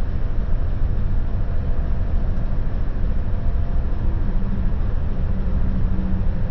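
Steady low rumble of a moving vehicle, with a faint, even hum above it.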